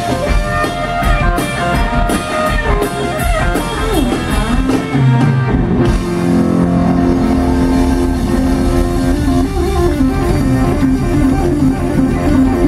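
Live blues-rock band playing: electric guitar over electric bass and drums. About five seconds in the cymbal and drum strikes drop away and the guitar holds long notes over the bass.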